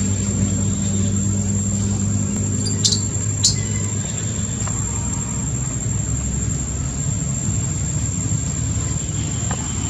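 Steady low engine hum, as of a vehicle idling, with a constant high-pitched whine over it; about three seconds in, two short sharp squeaks.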